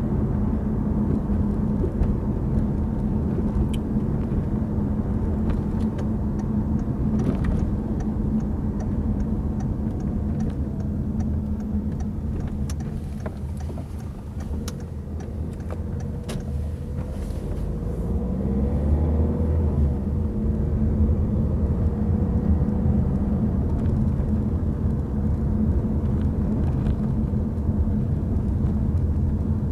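Peugeot 3008 heard from inside the cabin while driving: a steady engine and road rumble that eases off about halfway, then pulls away again with a rising engine note.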